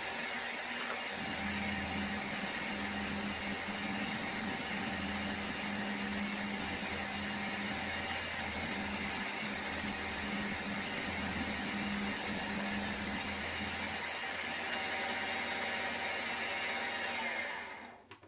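Small workshop machine tool running steadily while machining a metal part, a constant motor hum and whine. It stops near the end.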